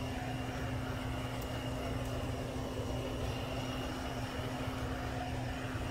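Handheld torch burning with a steady hiss as it is passed over wet acrylic paint to pop air bubbles.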